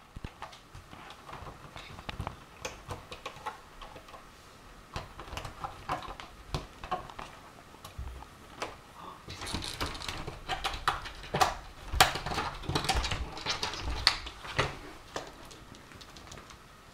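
A cat pushing at a pet door, its flap clicking and knocking against the frame in irregular bursts, busiest in the second half.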